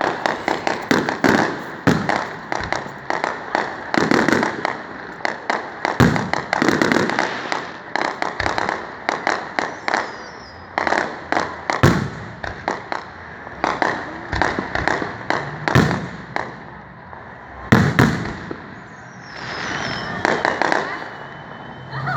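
Fireworks display: a rapid run of booms and crackling bursts, dense at first and thinning out later, with one strong bang a little after the middle.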